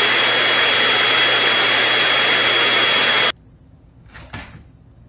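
A small motor running with a steady whir and a thin high whine, cutting off suddenly about three seconds in.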